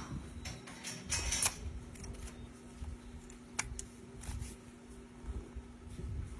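Hoof knife cutting and scraping into a cow's hoof sole, with irregular scrapes, clicks and short hissing bursts as pressure escapes from the pocket under the sole, over a steady low hum.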